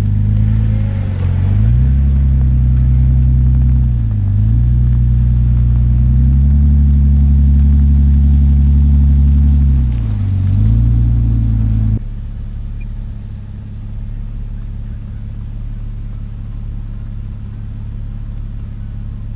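Vehicle engine running under way on a forest road, its pitch dipping briefly and recovering three times. About twelve seconds in it cuts abruptly to a quieter, steady low rumble.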